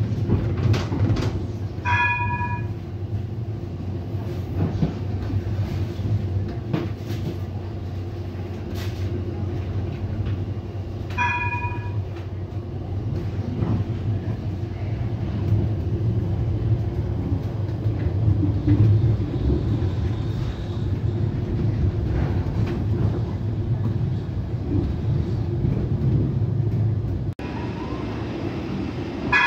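Interior of a STIB TNG tram in motion: a steady low running rumble of wheels on rail with scattered clicks. The tram's warning bell rings briefly about 2 s and 11 s in, and again right at the end.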